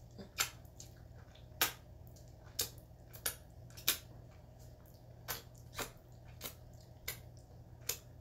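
Close-miked wet mouth clicks and lip smacks from licking fingers clean, about a dozen sharp smacks at irregular intervals.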